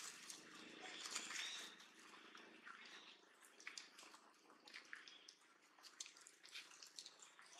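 Faint, irregular crackling and clicking as a baby long-tailed macaque handles dry leaves and chews at something held to its mouth.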